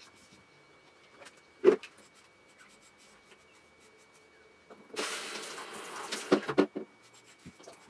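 A single sharp knock, the loudest sound, about a second and a half in. Then, about five seconds in, a hand-held shower head sprays water onto a wet cocker spaniel for nearly two seconds, a steady hiss with a few knocks as the head is handled, rinsing out the shampoo.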